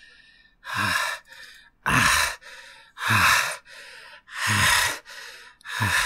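Exaggerated 'demonic' vocal retching by a person: five harsh dry heaves about a second apart, each dropping low in pitch, with a quieter gasping breath after each one.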